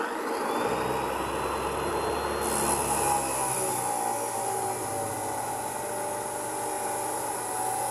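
Abrasive chop saw cutting through 1-inch mild steel strapping, the cut-off wheel grinding steadily through the metal with a continuous whine.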